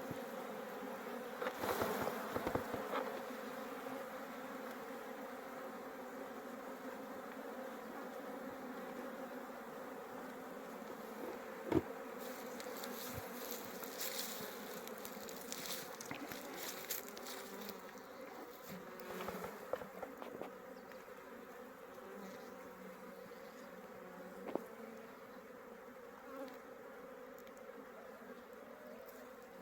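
Honeybees buzzing in a steady, many-toned hum, as around a working hive, with a few light clicks and crackles scattered through it.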